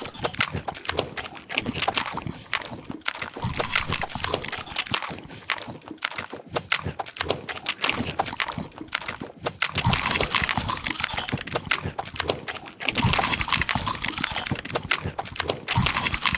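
A person chewing crunchy food close to the microphone: a dense, continuous run of crisp crunches, clicks and wet mouth sounds.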